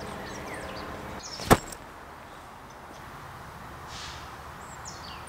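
A single sharp knock or bang about one and a half seconds in, the loudest thing heard, with birds chirping and a low steady hum that fades out in the first second.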